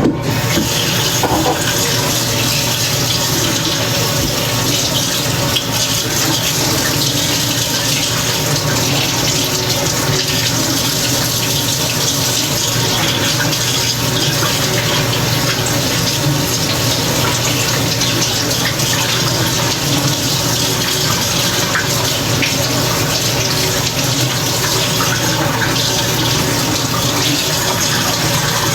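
Kitchen faucet running steadily into a sink as a measuring cup coated in mayonnaise is rinsed out; the water comes on suddenly at the start.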